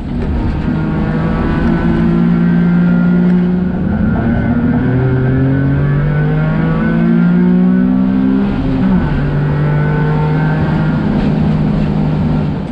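Small car's engine running under way with road noise. The engine pitch climbs slowly and drops sharply twice, about five seconds in and again near nine seconds, as it shifts up.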